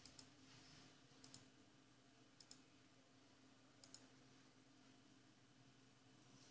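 Faint sharp double clicks, four pairs a little over a second apart that stop about four seconds in, over a faint steady low hum.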